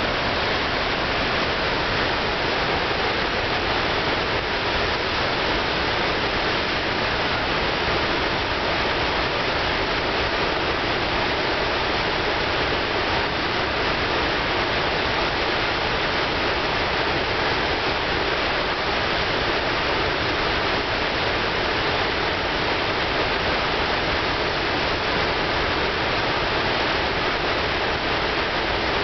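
Androscoggin River in flood, high, fast water pouring over the falls: a loud, steady, unbroken rush of whitewater.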